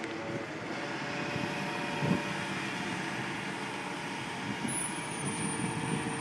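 Bucket truck engine running steadily while its aerial boom holds the bucket aloft. There is a short low thump about two seconds in.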